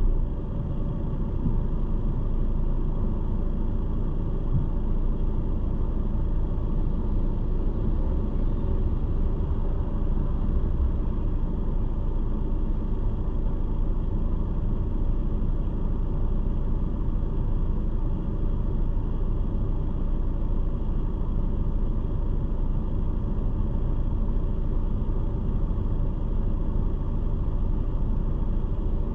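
Steady low rumble of a stationary car idling, heard from inside the car through the windshield-mounted camera, with a faint steady hum above it.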